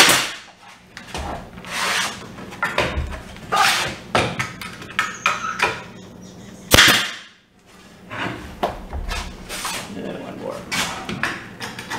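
Pneumatic nail gun firing nails into a glued mitered crown-molding corner: a sharp shot right at the start and another about seven seconds in. Between them, softer knocks and rubbing of the wooden molding as it is held and shifted.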